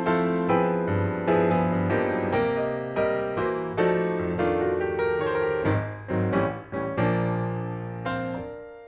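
Background piano music, notes struck and dying away in a steady rhythm; the last chord is held and fades out near the end.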